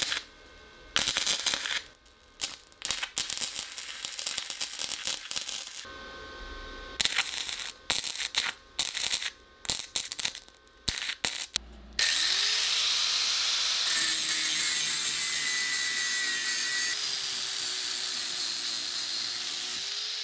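Stick-welding arc crackling in short, stop-start bursts as a nut is welded onto the steel air compressor tank. About twelve seconds in a power tool spins up and runs with a steady hiss until the end.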